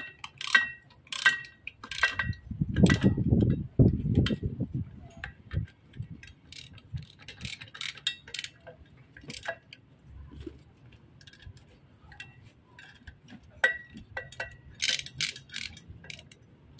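Hand wrenches, a ratchet among them, clinking and clicking on the metal bolts and housing of a truck air dryer. Ringing metal clinks come about every half second at first, then scattered clicks and ticks. A loud, low rumbling handling noise comes about three to four seconds in.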